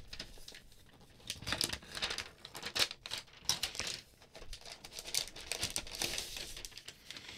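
Thin protective wrapper being peeled and slid off a laptop, crinkling and rustling in irregular bursts starting about a second in.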